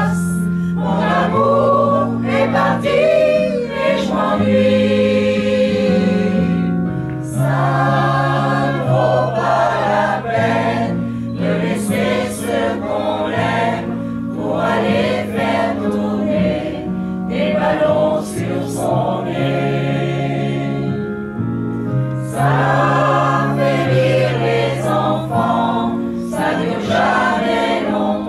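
Mixed choir of men and women singing a song in French in parts, in continuous phrases with held notes.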